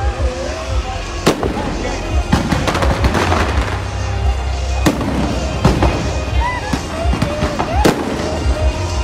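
Aerial fireworks display: shells bursting in a string of sharp bangs every second or so over continuous crackling and a low rumble. The biggest bangs come about a second in, about five seconds in and near the end.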